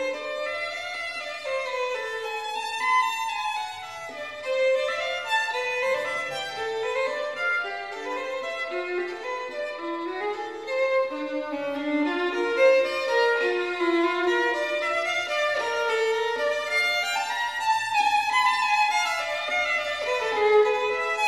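Background music led by a violin playing quick running melodic phrases.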